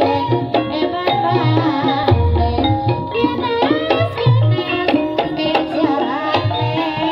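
Javanese gamelan music for an ebeg dance: kendang hand drums beating deep strokes under ringing metallophone notes and a singer's gliding voice.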